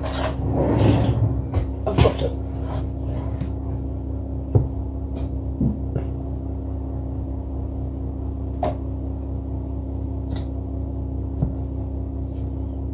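Scattered knocks and clicks of a spoon and a plastic butter tub as butter is scooped out and put into a bowl, the loudest about two seconds in, over a steady low hum.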